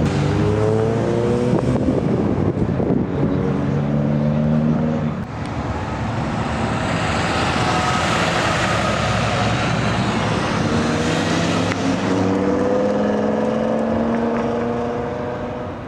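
Car engines accelerating away, their pitch climbing in pulls through the gears. A loud rushing noise fills the stretch between about six and twelve seconds in.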